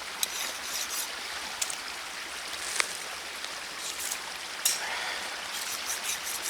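Campfire burning, a steady hiss broken by a few sharp crackles.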